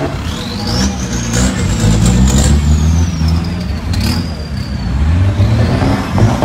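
Modified diesel pickup truck engines running and pulling away slowly, their note rising and falling. Over this runs a thin high whistle that climbs over the first second or so, holds, then slowly falls.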